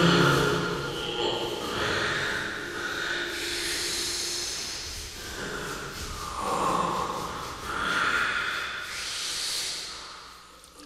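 Rushes of breathy noise swelling and fading every couple of seconds, like slow, heavy breathing.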